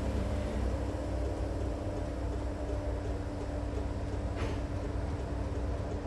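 Sydney Trains Tangara electric suburban train running away over the tracks: a steady low rumble with a steady hum, and one brief high-pitched sound about four and a half seconds in.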